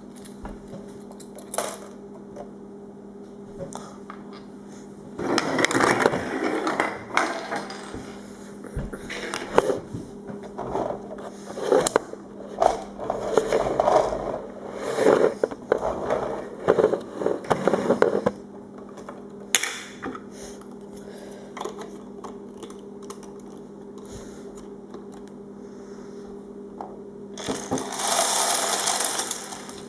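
A plastic Lego toy truck handled on a hardwood floor: wheels rolling and bricks clicking and knocking in irregular runs, with a dense clatter near the end as the truck is tipped over.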